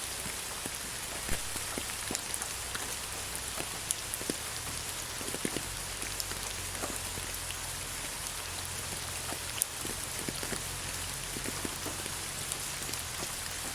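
Steady rain falling, an even hiss with many scattered drops ticking close by, and a low hum underneath.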